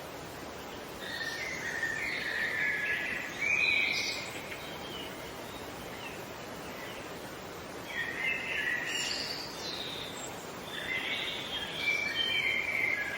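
Songbird singing in three warbling phrases, about a second in, around eight seconds in, and near the end, over a steady outdoor hiss of background noise.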